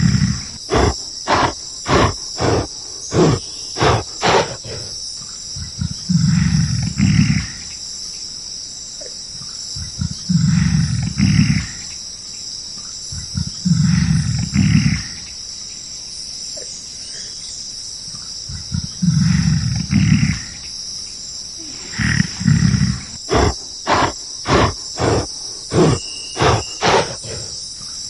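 Gorilla sounds over a steady high insect drone: a run of short, sharp strokes about two a second, then a series of deep, second-long roars. Another run of strokes comes near the end.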